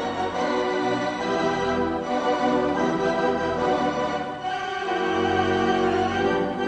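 Instrumental background music: held chords that shift to new ones every second or two, at a steady level.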